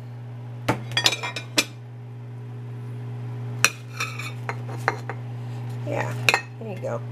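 Ceramic dinner plates clinking and knocking against each other and the counter as the plates are handled: a cluster of sharp clinks about a second in, more around four seconds, and one near the end. A steady low hum runs underneath.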